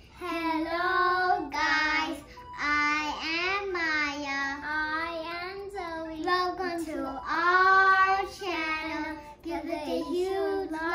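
A child's voice singing a short melody, holding notes in long phrases with brief pauses between them.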